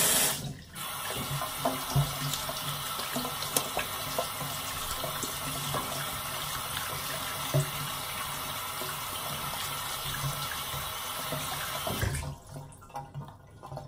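Water running from a tap into a sink, a steady rush with a few small knocks, shut off about twelve seconds in.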